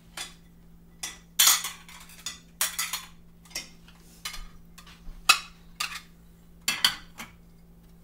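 Plates clinking and clattering against each other as they are taken out of a dishwasher and stacked: a dozen or so sharp, irregular clinks, the loudest about a second and a half in and again near five and seven seconds.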